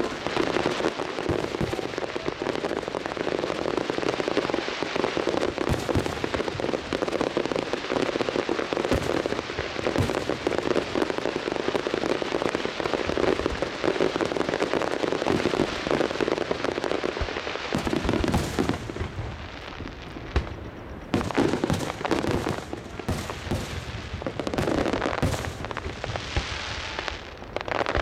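Fireworks crackling densely and continuously from low-level effects, then breaking up after about two-thirds of the way into separate bangs and crackles with short gaps as shells burst.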